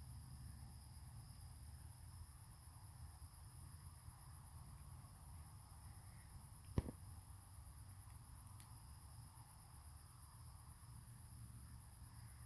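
Crickets and other insects chirping steadily in a high chorus over the low rumble of a bonfire, with one sharp crackling pop from the fire a little before seven seconds in and a fainter one shortly after.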